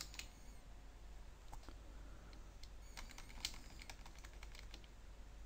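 Faint computer keyboard keystrokes, scattered clicks at an uneven pace, as a mistyped command line is erased with backspace and retyped.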